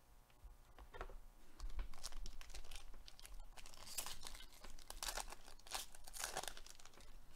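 Foil wrapper of a 2021 Panini Mosaic baseball card pack being torn open and crinkled by hand: a run of crackling and ripping that starts about a second in and is loudest in the second half.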